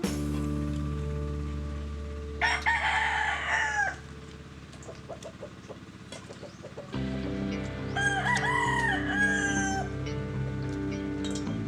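A rooster crowing twice, each crow about a second and a half long, over a steady low drone.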